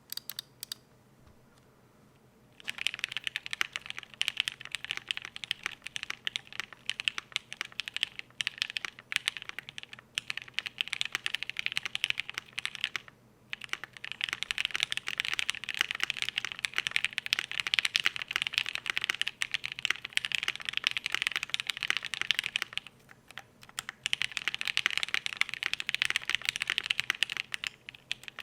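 Typing on a custom IDB60 mechanical keyboard: lubed and filmed Mauve linear switches, PCB-mounted with no plate and the case filled with polyfill, under GMK keycaps. Steady fast typing starts about two and a half seconds in and breaks off briefly twice.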